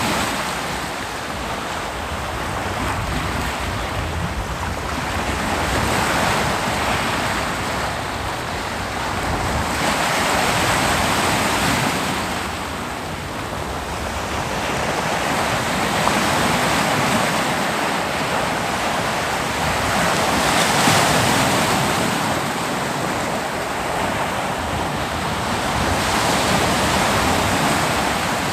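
Ocean waves breaking on a beach: a steady wash of surf that swells and eases every few seconds as each wave comes in, with some wind on the microphone.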